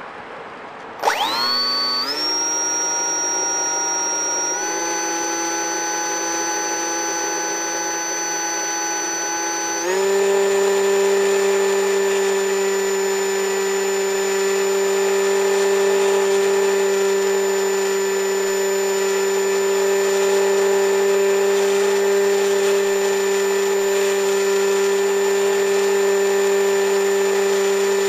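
A machine starts up about a second in, speeds up in three quick steps, then runs at a steady pitch with a strong hum.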